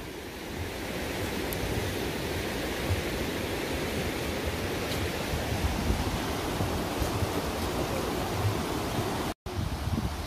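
Wind blowing across the microphone: a steady rushing hiss with irregular low rumbling buffets. The sound breaks off for a moment near the end.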